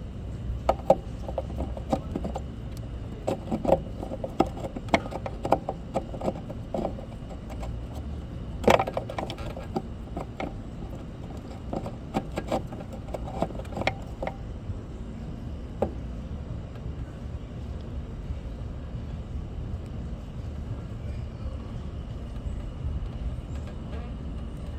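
Scattered light clicks and knocks of a pickup's tail light housing and wiring being handled by hand, many in the first half with one sharper knock near the middle, then only a steady low outdoor rumble.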